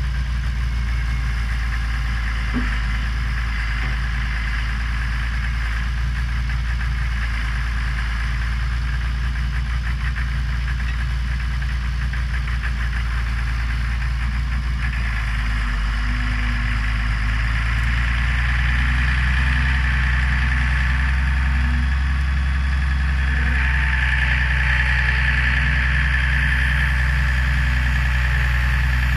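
Diesel engine of a 1988 Hymac 181 crawler excavator running steadily, growing a little louder from a little past halfway.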